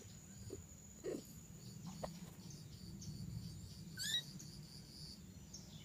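Faint, scattered animal calls, the loudest a short high chirp about four seconds in.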